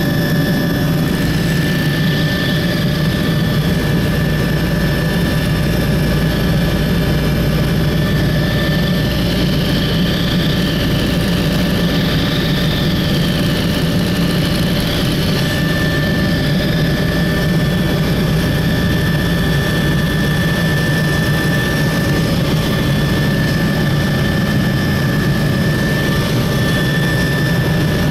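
Helicopter in flight heard from inside the cabin: a loud, steady drone of engine and rotor with a constant high whine over it.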